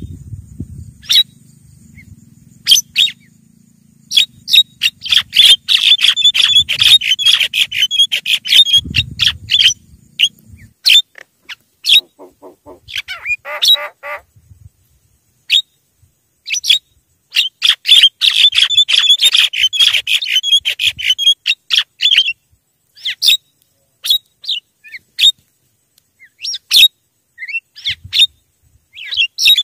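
Javan mynas calling: rapid, harsh chattering notes that come in two long busy runs with scattered single calls between them. A lower, rattling chatter comes about halfway through.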